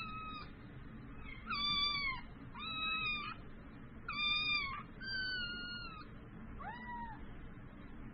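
A cat meowing six times in quick succession, the high-pitched meows about a second apart, several of them falling slightly in pitch.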